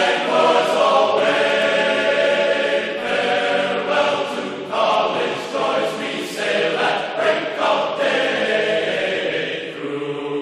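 Background music of a choir singing held chords.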